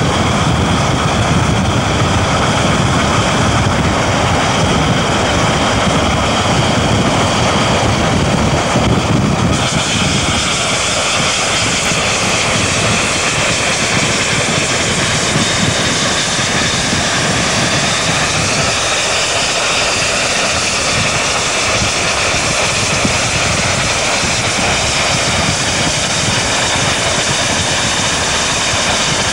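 Two New Zealand Railways steam locomotives, J class 4-8-2 No. 1234 leading Ka class 4-8-4 No. 945, hauling a passenger train past at speed: a loud, steady rush of locomotive and running-gear noise. The deep part of the sound eases about ten seconds in, and the carriages' wheels on the rails follow.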